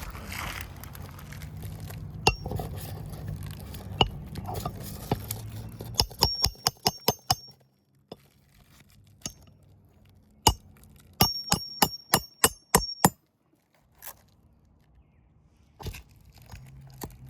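Hammer striking a nail through a roof shingle, with sharp metallic, ringing strikes: a few single taps, then two quick runs of about eight blows each, some seconds apart.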